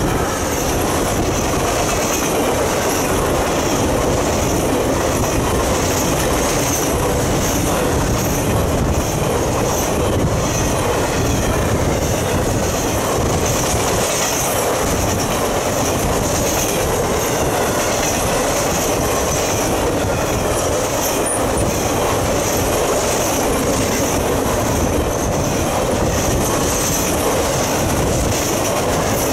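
Triple Crown RoadRailer trailers rolling past on their rail bogies: a steady, loud rumble of steel wheels on rail with a rhythmic clatter over the rail joints.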